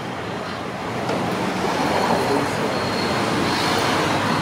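Road traffic noise, swelling about a second in as a vehicle passes close by.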